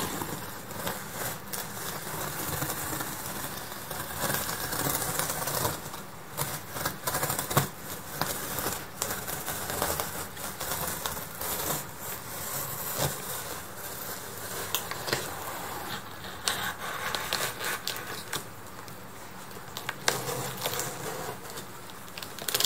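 A utility knife slicing along the packing-tape seam of a cardboard box, with irregular crackling, scraping and clicking as the blade cuts through tape and drags over the cardboard.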